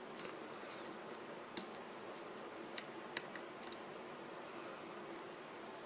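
Lock pick and tension wrench working the pins of a pin-tumbler lock: a handful of short, sharp, light metal clicks, about five spread over the first four seconds.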